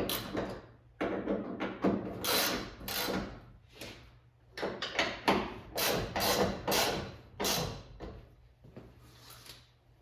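A run of short scraping and rubbing noises, one after another at uneven intervals, from handling a classic car's trunk lid while checking a hinge adjustment.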